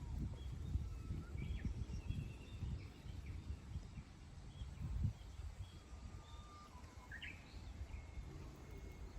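Wild birds chirping and calling in short, scattered notes, with a brief rising call about seven seconds in, over a low, uneven rumble that is strongest in the first half.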